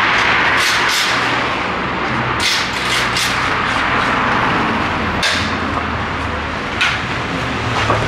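Steady street and traffic noise, with several short sharp clanks and knocks from the steel shipping frame being handled and taken apart.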